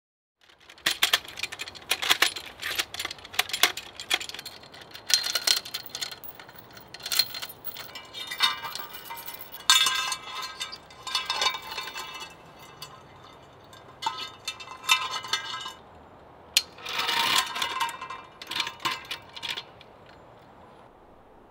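Steel chain links and metal parts of an iKamper Disco Series tripod grill clinking and jangling as the chain is handled and the hanging grill plate's height is adjusted. The clinks come in irregular clusters with a short metallic ring.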